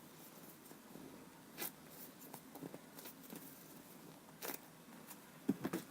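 Faint handling sounds of a foam squishy toy: quiet rustling and scraping, with two brief louder scrapes about a second and a half in and again about four and a half seconds in.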